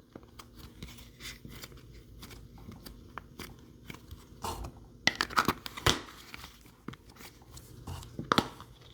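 Icy cloud slime being squeezed and stretched by hand, crackling with many small clicks and pops, with a few louder squishes in the middle and near the end.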